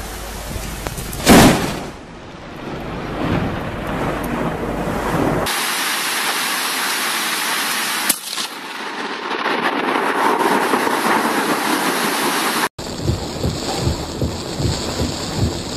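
Thunderstorm in heavy rain with close lightning strikes: a sharp thunder crack about a second in that rolls into a rumble, steady hiss of rain, and another sharp crack near the middle. Near the end, wind-driven rain with irregular low buffeting.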